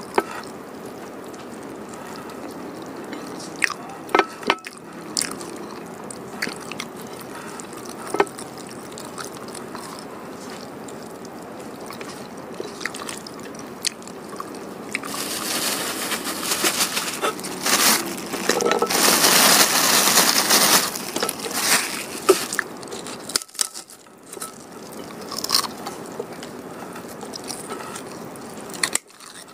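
Close-miked eating: pecel sayur (boiled vegetables and fried tofu in peanut sauce, with crackers) being chewed, eaten by hand, with scattered sharp clicks. About halfway through there is a louder stretch of crunching that lasts several seconds.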